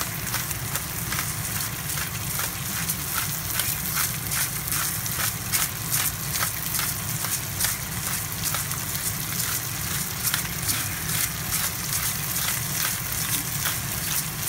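Lobster pieces sautéing in oil in a stainless steel pan with onion and spring onion: a steady sizzle with many small crackling pops throughout.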